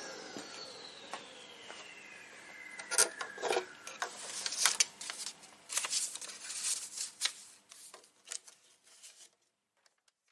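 Faint electronic sound effect: a tone sliding slowly downward over the first few seconds, with a scatter of irregular clicks and crackles that thin out and stop about nine seconds in.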